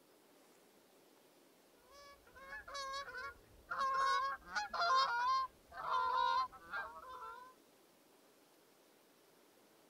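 Several geese honking, a run of overlapping calls that starts about two seconds in and dies away about two seconds before the end.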